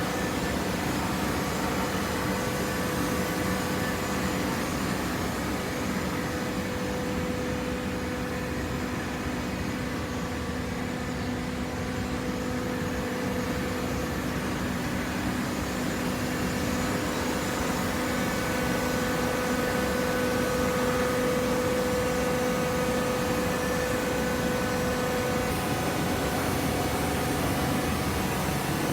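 Automatic hydraulic waste paper baler running: a steady machine hum with a held whine, growing slightly louder in the second half.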